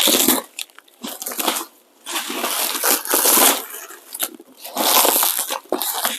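Plastic packaging wrap and cushioning being handled and pulled about, rustling and crinkling in four or so separate bursts with short pauses between.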